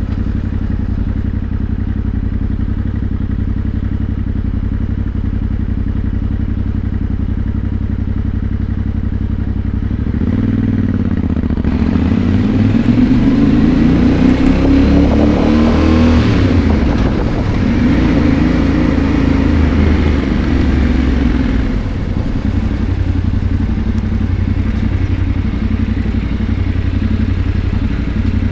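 Yamaha Ténéré 700 parallel-twin engine through a Mivv Dakar stainless aftermarket exhaust, running loud and steady. About ten seconds in the revs climb for several seconds and hold higher, then drop back to a steady lower note a little past twenty seconds.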